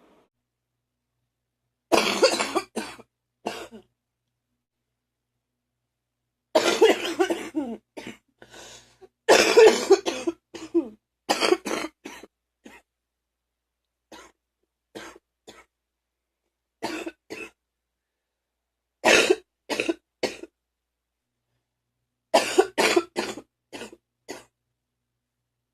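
A person's wet, phlegmy cough, coming in bouts of several coughs in quick succession separated by pauses of a few seconds.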